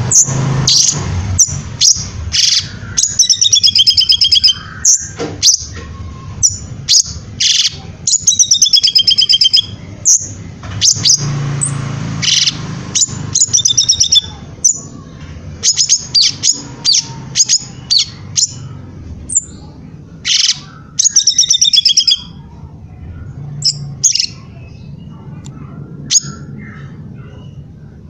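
Cungkok leafbird singing in a long, busy run of sharp high chirps and fast warbled trills, broken by short pauses. The song is played as a 'masteran' recording for teaching other songbirds to sing.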